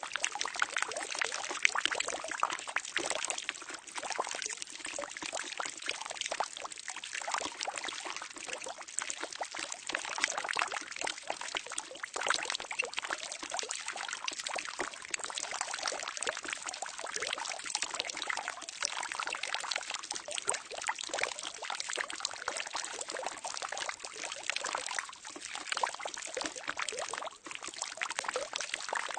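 Water pouring steadily into a barrel, a continuous splashing trickle.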